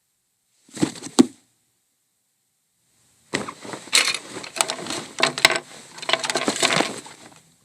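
Cartoon sound effects: a short clattering burst with two sharp clicks about a second in, then about four seconds of dense clattering and cracking.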